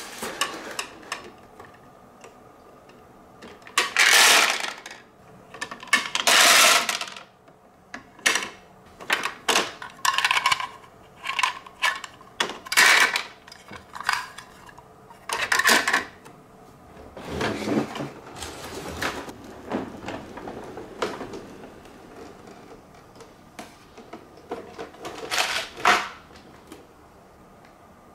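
Marbles and the plastic parts of a toy garbage truck clattering and rattling in a string of separate bursts, the longest two a few seconds in, with short clicks and rattles between.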